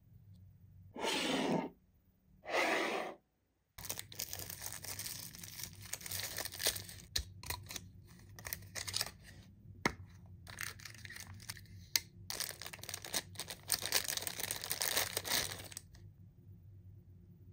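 Paper and plastic toy packaging being torn open and handled. Two short tearing sounds come about a second and a half apart near the start. Several seconds of crinkling and rustling with small sharp clicks follow and stop shortly before the end.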